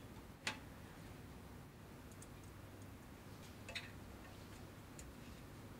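A few faint, sparse clicks and ticks of hands handling small parts and wires in a metal amplifier chassis, the loudest a little before the four-second mark, over a low steady background hiss.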